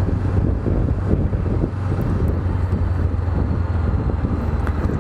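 Honda CB500X parallel-twin engine running at a steady pitch, with wind rushing over the microphone.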